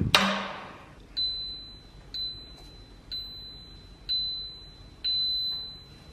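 A knock, then treadmill console button beeps: five high electronic beeps about once a second, the last one held longer, as the 12-3-30 incline walk program is keyed in.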